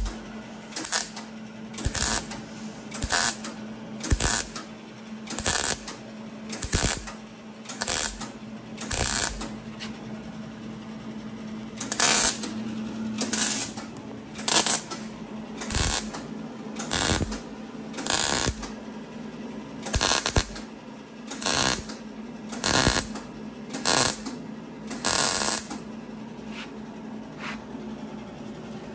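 MIG welder laying short stitch welds on a steel exhaust pipe, each a crackling burst lasting a fraction of a second, repeating about once a second and stopping a few seconds before the end. A steady low hum runs underneath.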